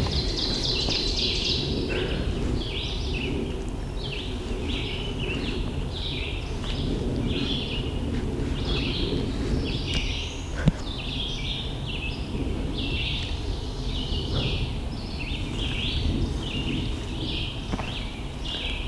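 Many small songbirds singing and chirping at once in a chorus, over a steady low rumble. About ten and a half seconds in there is a single sharp click.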